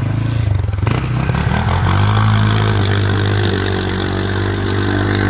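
ATV (quad bike) engine revving up about a second in and held at high revs while the quad pushes through deep mud and water, with mud and water splashing.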